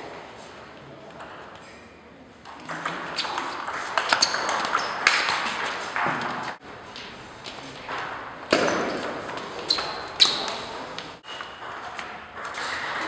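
Table tennis ball struck back and forth in a rally, a series of sharp ticks off the bats and the table.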